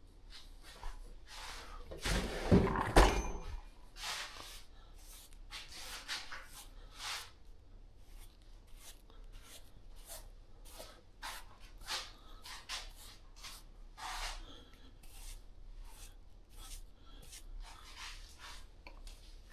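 Hands working a damp deer cape over a mount form, pressing and smoothing out trapped air: an irregular string of short rubbing and handling sounds, with a louder knock and rub about two to three seconds in.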